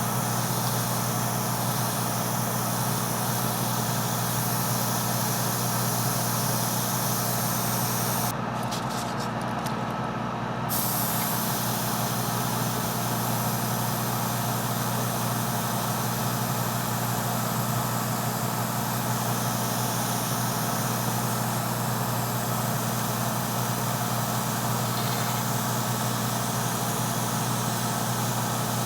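Airbrush spraying paint, a steady hiss of air over the hum of its compressor. The hiss stops for about two seconds roughly a third of the way in, then starts again, while the compressor hum runs on.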